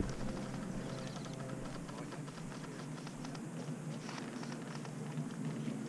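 Footsteps and rustling as a player moves through undergrowth: a run of irregular light clicks and crackles.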